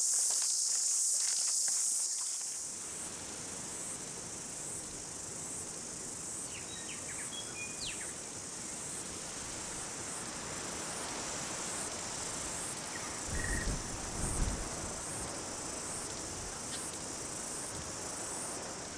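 High-pitched insect chorus pulsing steadily, loudest in the first couple of seconds and then fainter over a steady rushing noise. A few short chirps come in the middle, and there are brief low bumps about fourteen seconds in.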